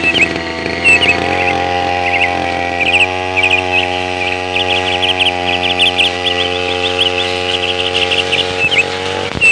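Small two-stroke brush cutter engine running steadily at working speed. Its pitch steps up slightly twice and falls off just before the end. Birds chirp rapidly over it.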